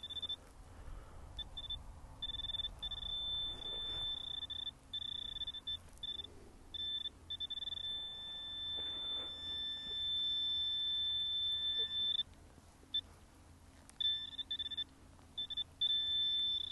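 Handheld metal-detecting pinpointer giving a high-pitched beep in on-and-off stretches of uneven length as it is worked through a clod of soil. In the middle it runs into one continuous tone for about four seconds as it closes on a buried metal target.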